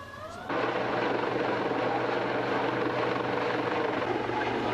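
Helicopter flying close overhead: a loud, steady rotor and turbine noise with a steady low hum, cutting in abruptly about half a second in.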